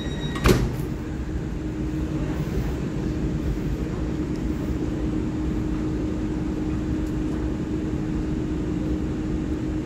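Taiwan Railway EMU3000 electric multiple unit standing at an underground platform, its onboard equipment giving a steady hum over a low rumble. A single sharp knock comes about half a second in.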